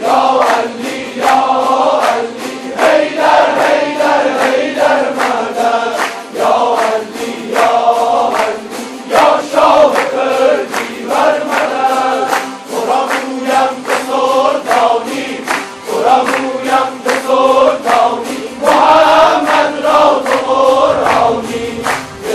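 A large ensemble of tanburs, Kurdish long-necked lutes, strummed together in a steady, driving rhythm, while men and women sing in chorus over them.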